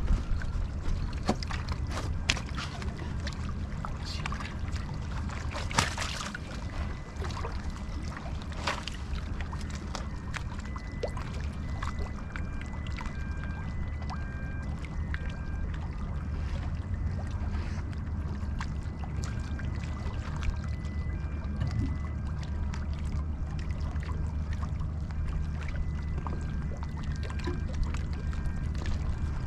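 Estuary water lapping and splashing at a rocky shore edge, with a bass held in the shallows for release, over a steady low rumble. Small splashes come often in the first half and thin out later.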